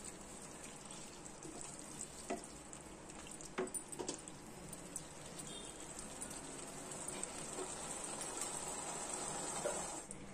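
Paneer and vegetable gravy with freshly added beaten curd sizzling in a non-stick pan while a wooden spatula stirs it, with a few scrapes of the spatula against the pan. The sizzling stops shortly before the end.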